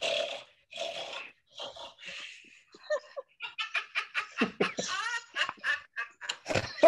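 A class of young children pig snorting together over a video call, many overlapping little snorts in quick, irregular succession, heard through a phone's speaker, with laughter mixed in.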